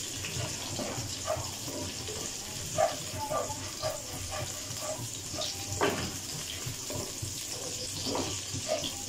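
Chopped garlic sizzling gently in hot oil in a kadai as it is stirred with a spatula: a steady hiss with small crackles, and two sharper clicks, the second one about halfway through. The garlic is being lightly fried to take off its raw edge, not browned.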